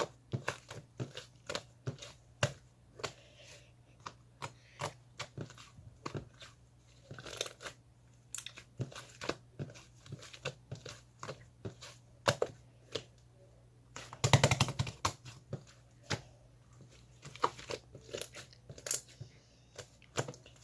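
A steady run of small, sharp clicks and taps at an uneven pace, about two or three a second, with a louder, denser crinkling rustle about two-thirds of the way through.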